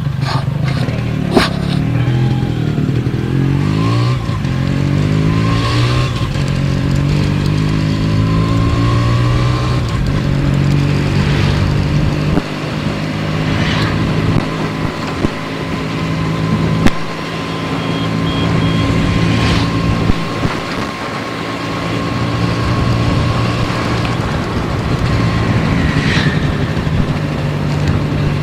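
Yamaha RX 135's two-stroke single-cylinder engine running while the bike is ridden, its note climbing in the first few seconds, then holding fairly steady with small dips. A few sharp knocks are heard along the way.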